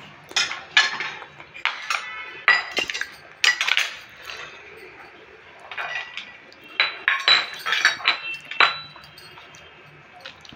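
Stainless-steel kitchen utensils clinking: a steel pestle, a small steel bowl and a spoon knocking against a small steel mortar cup as garlic is tipped in. The clinks are sharp and irregular, each with a short metallic ring, bunched in the first few seconds and again around seven to nine seconds in.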